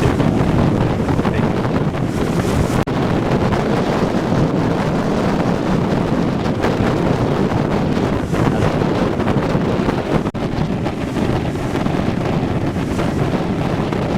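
Strong wind buffeting the microphone over heavy surf from Hurricane Ike's swell rolling onto the beach, a dense steady rumble with two brief drops in loudness.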